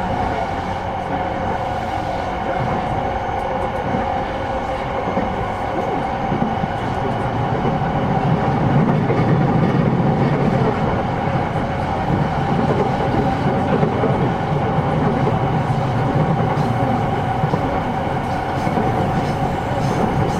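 Running noise inside a JR East E233-6000 series commuter train between stations: low wheel-on-rail rumble under a steady hum, the rumble growing louder about eight seconds in.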